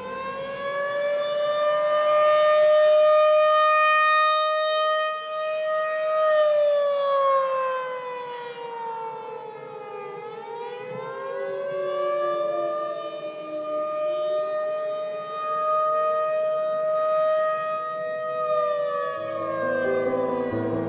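Outdoor civil-defense warning siren sounding a tornado warning. It winds up to a steady high wail, slides down, winds up again and holds, then falls away. Piano music comes in near the end.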